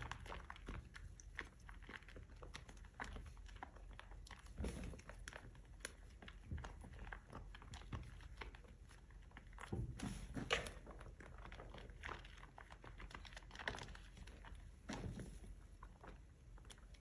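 Soaked, mushy soap being scuffed and squished, giving faint crackly, crunchy textures with a few louder soft knocks.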